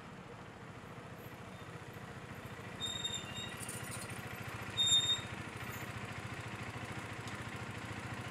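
KTM RC sport motorcycle's single-cylinder engine running as the bike rides up and stops, then idling with a steady fast pulse. Two short high-pitched squeaks come about three and five seconds in.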